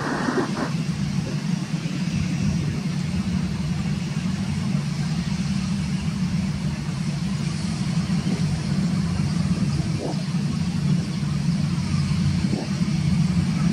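Jet engine noise from a Boeing 767-300ER's two Pratt & Whitney PW4060 turbofans as the airliner climbs away after takeoff: a steady, heavy rumble with a hiss above it. There is a short burst of noise right at the start.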